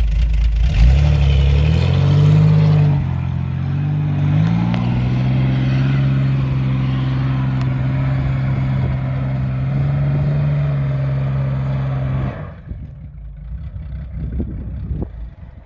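Chevrolet S10 Blazer engine running under load, its pitch rising over the first few seconds and then holding steady for several seconds before the sound stops abruptly near the end.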